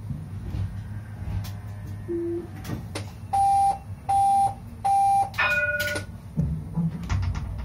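Tram's door-closing warning: three short electronic beeps on one pitch about a second apart, then a quick falling three-note chime, over the low hum of the stationary tram.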